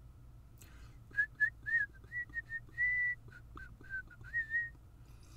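A person whistling a short tune of about a dozen quick notes, some sliding up or down, over a faint steady hum.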